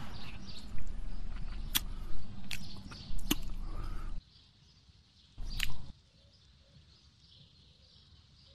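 Steady background hiss with a few sharp clicks or taps. The hiss cuts off suddenly about four seconds in, leaving near quiet broken by one more short burst and click.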